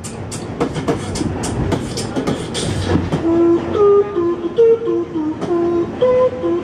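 Human beatboxing: mouth percussion of sharp clicks and kicks, then from about three seconds in a hummed melody of held notes over the beat, the opening of a classic movie theme.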